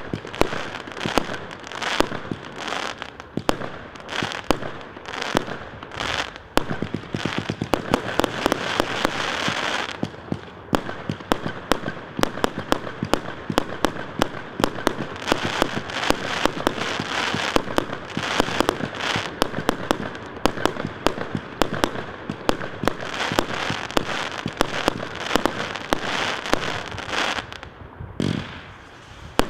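Consumer firework battery (cake) firing shot after shot in rapid succession: a dense string of launch thumps and bursting bangs with crackling. It thins out briefly near the end before a last couple of loud bangs.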